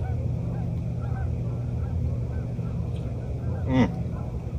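A flock of geese honking in the distance, many short overlapping calls, over a steady low hum. A louder, short falling sound comes near the end.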